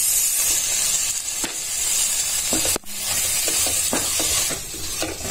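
Vegetable filling sizzling in a hot nonstick pan, with soy sauce just added, as it is stir-fried with a slotted spatula; a few light scrapes and taps of the spatula against the pan come through the steady sizzle.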